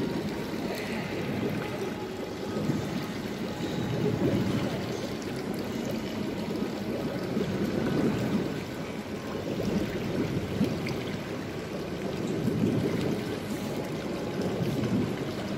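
Steady splashing and trickling of a small fountain running into an indoor pool.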